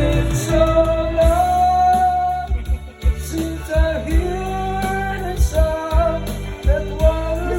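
Music: a recorded pop love song, a singer holding long notes over a band with drums.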